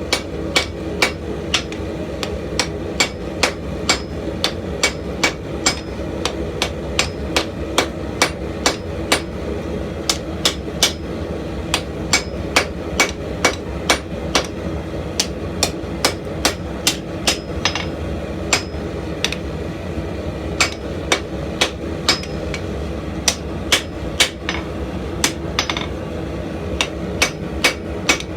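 Hand hammer striking hot leaf-spring steel on an anvil as the spear blank is forged, a steady run of sharp blows about two to three a second with brief pauses, over a steady background noise.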